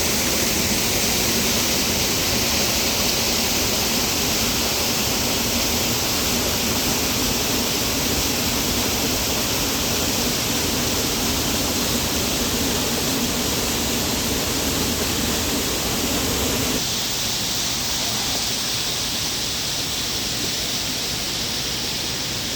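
Steady rush of a small waterfall and river water. About three-quarters of the way through the sound changes suddenly, its deep rumble dropping away and the level falling slightly.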